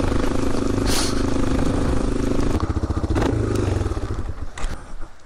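Yamaha Serow 225's air-cooled single-cylinder four-stroke engine running as the bike rides a rough dirt track, with a few clatters from the bike over the ground. About three seconds in the engine note eases off and fades as the bike slows.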